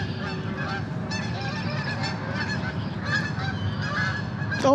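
Repeated honking calls of geese over a steady low rumble of wind on the microphone.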